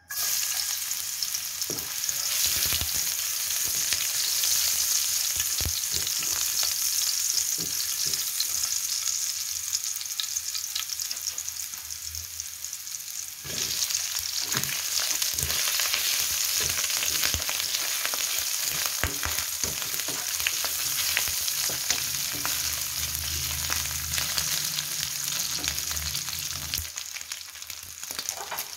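Minced garlic sizzling in hot oil in a metal wok, starting suddenly as it drops in. About halfway, pieces of pork and ham go in and the sizzle gets louder, with clicks and scrapes of stirring throughout.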